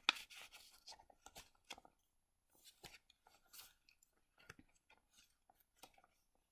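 Paper and card pages of a handmade junk journal being handled and turned: faint scattered rustles and light taps, loudest just at the start.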